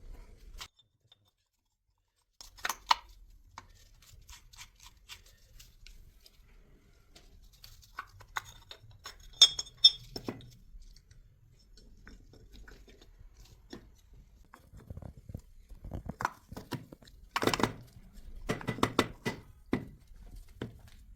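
Scattered clicks, taps and knocks of tools and metal starter-motor parts being handled, with a brief ringing metal clink about halfway through and a busier run of knocks near the end.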